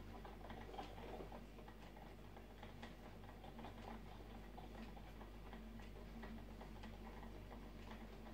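Faint, irregularly spaced ticks and small clicks over a steady low electrical hum.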